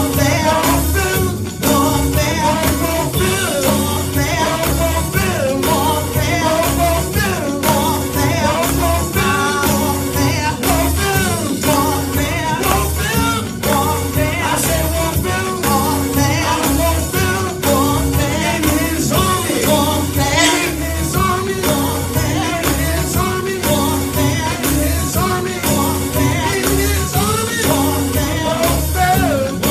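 Gospel praise music: voices singing over a band, with drums keeping a steady beat under a bass line.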